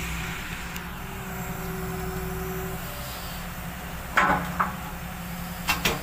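A heavy diesel engine idling steadily, with a few sharp metallic clanks about four seconds in and again near the end.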